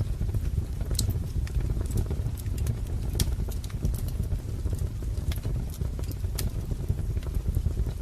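Wood fire crackling: a steady low rumble with sharp pops and snaps scattered about once a second.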